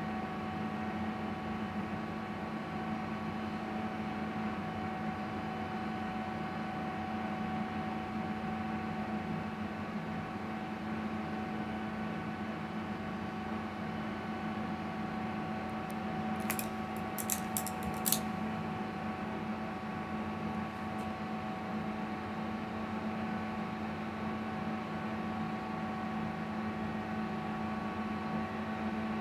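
A steady mechanical hum with several fixed tones. A little past halfway there is a quick run of about five sharp snips from haircutting scissors closing on hair.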